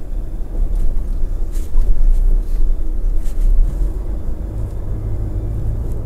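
Truck rolling slowly over cobblestones, heard from inside the cab: a steady low rumble from the engine and tyres, with a few short knocks or rattles.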